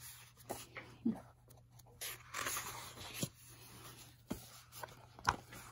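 Paper pages of a hardcover book being turned and handled: rustling with a few light clicks and taps.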